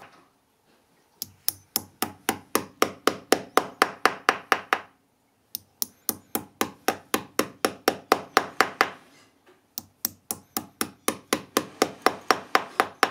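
Small upholstery hammer tapping domed decorative upholstery nails through fabric into a wooden chair frame: quick, sharp taps about four a second, in three runs with brief pauses between them.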